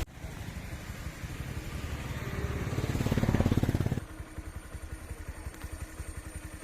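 A motor vehicle's engine running with a rapid pulsing beat. It grows louder for about four seconds, drops off suddenly, then goes on quieter with a steady hum.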